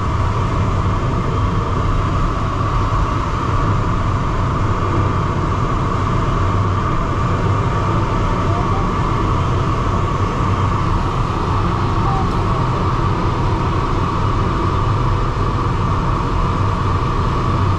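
Steady rush of air streaming over the canopy of a DG303 sailplane in flight, heard from inside the cockpit, loud and unchanging.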